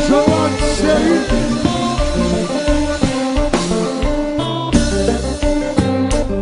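Live kompa band playing, a guitar melody over a steady bass line, with sharp drum hits coming quicker near the end.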